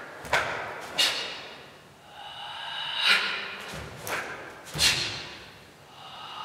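Sharp, forceful exhalations through the nose, about five short puffs at irregular intervals, timed with the strikes of a taekwondo form.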